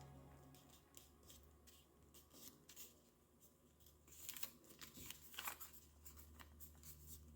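Faint rustling and creasing of a sheet of paper being folded by hand, in a scattering of light crackles and taps over a low steady hum.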